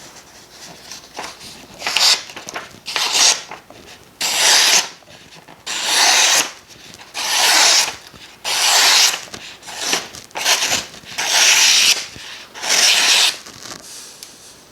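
Hazetac balisong being flipped, its handles swinging and rubbing in a repeated rhythm of swishing strokes, about one every second and a half.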